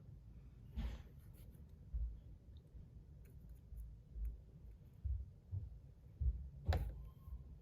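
Small handling clicks and soft knocks from a zirconium ratchet/haptic fidget coin being taken apart by hand. The soft knocks come about once a second, with a sharper click about a second in and another near the end.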